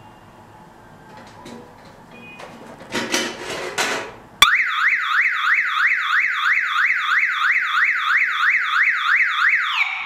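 Car alarm siren of a wireless alarm kit going off about four and a half seconds in: fast repeating rising whoops, about three a second, that stop just before the end. Before it, a short rustle.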